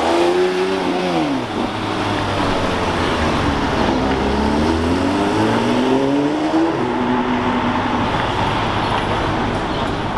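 Porsche 992 GT3 RS's naturally aspirated flat-six passing close, its pitch dropping about a second in, then climbing again as the car accelerates away and levelling off near the end.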